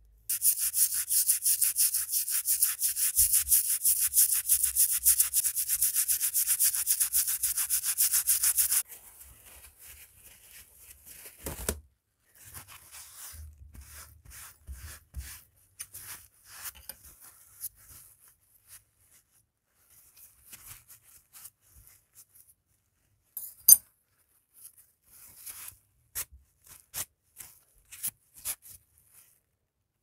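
Gloved hands rubbing a rusty pocket knife blade: loud, quick, even scraping strokes for about nine seconds, then softer, scattered wiping of the blade with a paper towel and one sharp click.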